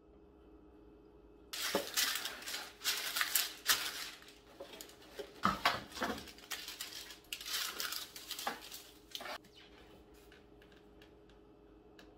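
Parchment paper rustling and crinkling as it is pulled off its roll, torn off and spread over a metal baking sheet, with a few clinks and knocks of the sheet. The handling starts about a second and a half in and stops about nine seconds in.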